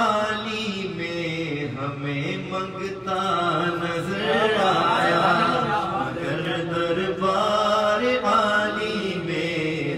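A man singing an Urdu naat, drawing a verse out in long held notes whose pitch bends and wavers, most ornamented about halfway through.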